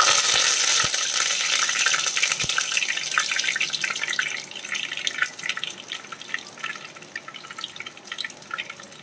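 Fresh curry leaves sizzling and crackling in hot oil, starting loudly the moment they are dropped in and dying down over the next several seconds as their moisture cooks off.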